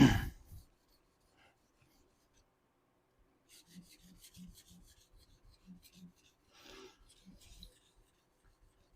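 Straight razor being honed on a wet Shapton whetstone: faint strokes of the blade scraping across the stone, about three a second, starting about three and a half seconds in with a short pause midway, while the bevel is being set. A short knock at the very start.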